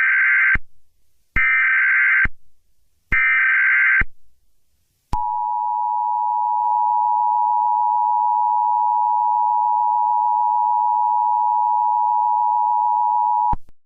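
Emergency Alert System alert opening: three short bursts of SAME header data, a warbling modem-like sound under a second each. Then the EAS two-tone attention signal, a steady dual tone held for about eight and a half seconds that cuts off abruptly near the end.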